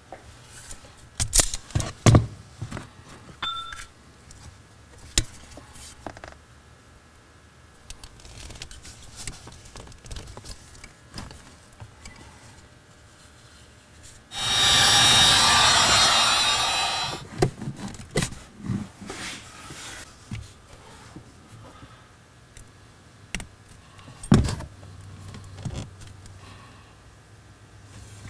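Small clicks, taps and rattles of hand tools, wire and a fuse tap being handled during wiring work. About halfway through, a loud, even rushing noise lasts about three seconds, starting suddenly and fading out.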